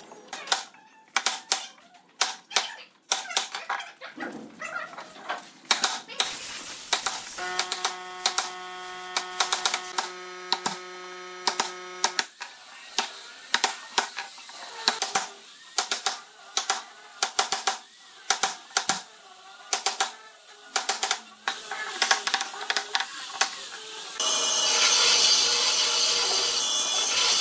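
A long run of sharp, irregular taps and knocks from a steel chisel worked by hand into a pine board, with a steady hum for a few seconds midway. About 24 seconds in, a bandsaw starts running steadily as a board is fed to the blade.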